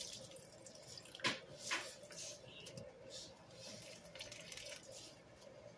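Soapy sponges squeezed and sloshed by hand in a basin of sudsy water: irregular wet squelching and splashing, with two sharper splashes about a second and a half in. A faint steady hum runs underneath.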